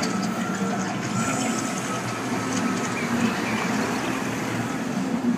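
Steady city street noise with a low hum running under it.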